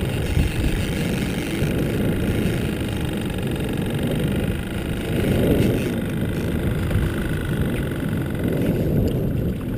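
Steady low rumble aboard a small outboard-powered fishing boat on open water, with no distinct events standing out.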